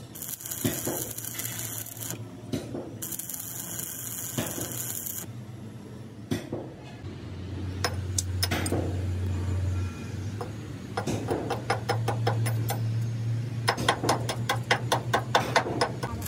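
Metal repair work on a truck chassis: scraping and rubbing with bursts of hiss, then quick runs of sharp taps over a steady low hum.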